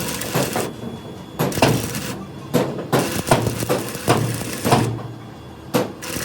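Hammer blows on heavy metal, irregular knocks at about one to two a second, each ringing briefly, over a low steady hum.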